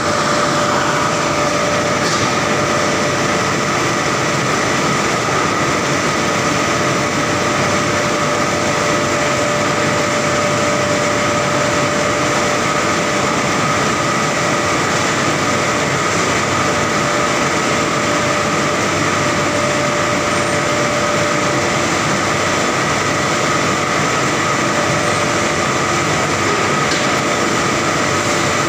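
Steel TMT bar rolling mill running, a loud, steady din of roll stands and roller tables with several constant whining tones over it, as a red-hot bar passes through the stands. One of the whines fades out about three-quarters of the way through.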